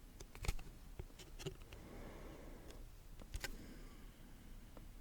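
Football trading cards and their pack being handled: a few light clicks and taps of card edges, with soft rustling between.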